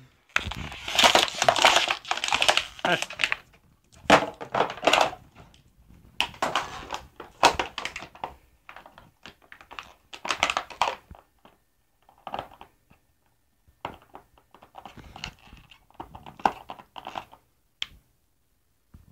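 A dog biting and crushing a plastic water bottle: irregular bursts of crackling, crinkling plastic, dense at first and thinning out and quieter over the last several seconds.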